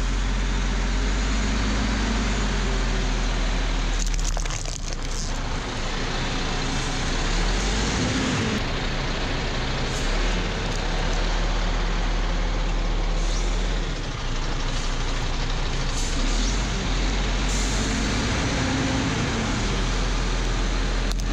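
A 7-ton truck's engine running steadily, a constant low rumble, with a few short sharp noises, the clearest about four to five seconds in.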